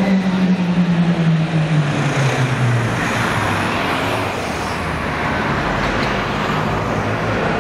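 Two coupled Konstal 105Na trams approach along the street with road traffic beside them. A low hum falls steadily in pitch over the first three seconds, then gives way to a steady, louder rolling noise as the trams draw near.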